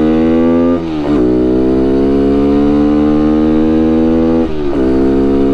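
Single-cylinder engine of a 110 cc gas pit bike pulling hard under throttle, its pitch slowly climbing, with two upshifts: about a second in and again near the end, where the note briefly drops and then picks up again in the next gear.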